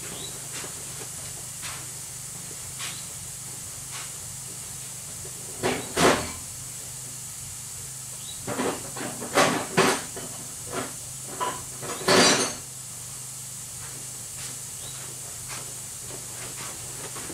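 Hammer blows on a steel punch, knocking a part that went in crooked into the Dodge 9 1/4 axle housing to straighten and seat it. The strikes come in a double blow, then a bunch of about eight sharp taps, the last one loudest, over a steady hiss.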